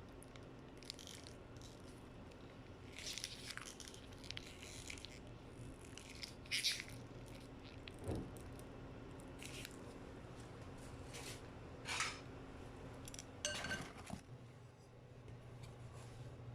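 Faint scattered rustles, crunches and clicks over a low steady hum, typical of quiet handling sounds in a kitchen.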